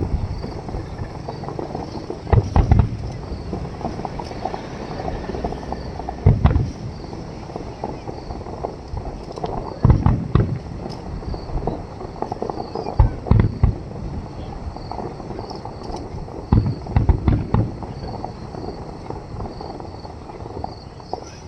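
Aerial fireworks shells bursting with deep booms every few seconds, some in quick pairs, over a steady murmur of crowd chatter.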